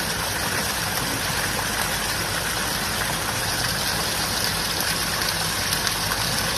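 Tap water running in a steady, unbroken stream, an even rushing splash with no breaks.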